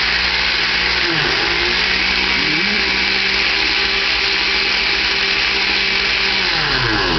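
Vintage Osterizer Dual Range Pulse Matic blender's motor running loud and steady on its "blend" speed. Its pitch dips and climbs back up about one second in and again near three seconds as the speed changes, then falls away near the end as the motor slows.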